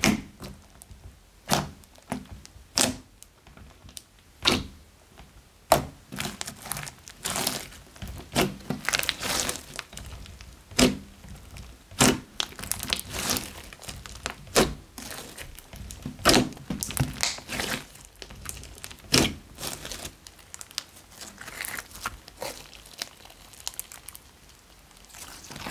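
Fingers poking into a thick slime studded with foam beads, making sharp pops about one every second and a half. After about six seconds these give way to denser crackling and squishing as the slime is folded and stretched.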